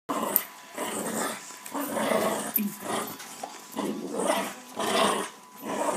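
Small long-haired dog growling in rough play while it bites and worries at a bare foot: a string of short, rough growls, about one a second.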